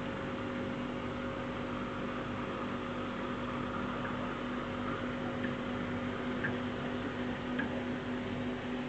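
Steady mechanical hum of aquarium equipment, with a low droning tone and a few faint ticks partway through.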